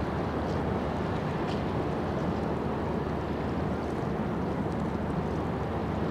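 Steady, even rumble from the cruise ship Bolette passing close by, mixed with wind.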